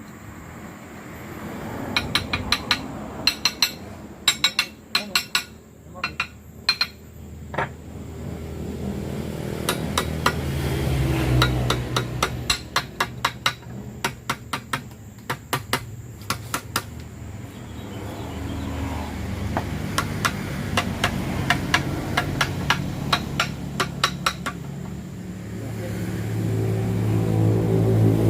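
Quick runs of sharp metal taps from a hammer striking steel parts during bulldozer transmission assembly. An engine runs underneath, growing louder about ten seconds in and again near the end.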